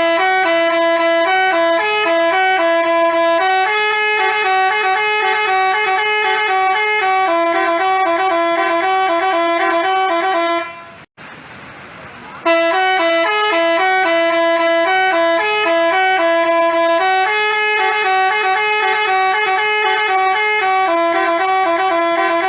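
Basuri telolet bus horn playing a tune of stepped, held horn notes. It plays in two long passages, stopping for about a second and a half near the middle before starting again.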